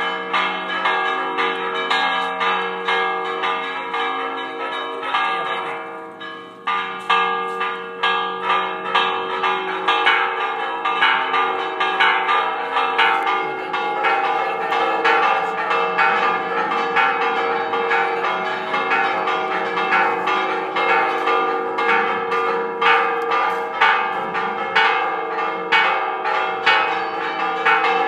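Church bells ringing a repique: a fast, continuous festive peal of struck bells, several strokes a second. The ringing thins out briefly about six seconds in, then picks up again louder.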